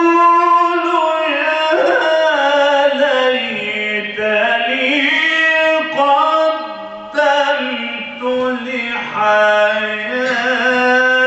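A man's voice chanting Quran recitation (tilawa) in the melodic, ornamented mujawwad style, drawing out long notes that slide and waver in pitch. There are short breaks for breath about four and seven seconds in.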